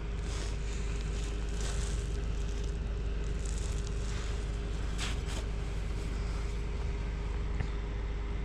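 Steady low background hum and hiss with a faint constant whine, and two light clicks about five seconds in.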